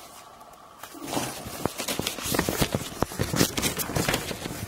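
Plastic parts bags and paper instruction sheets of a plastic model car kit being handled, crinkling and rustling in a quick run of crackles that starts about a second in.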